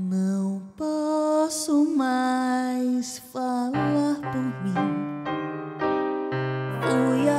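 Piano and a melody line over it, in a slow song: the piano holds sustained chords in the low range while the lead phrases rise at their ends.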